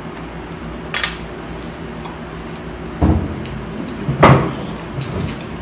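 Knocks and clacks from handling shellfish at a table: a light click about a second in, a dull thump at three seconds and the loudest knock just after four. Under them runs the steady hum of a room fan and air conditioner.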